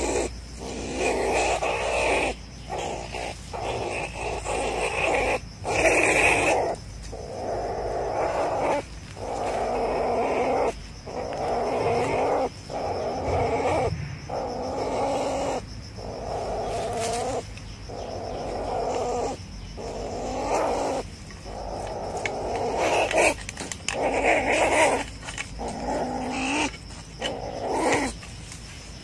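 A ferret-badger caught in a trap, growling in repeated rough bursts, each about half a second to a second and a half long, with short breaks between.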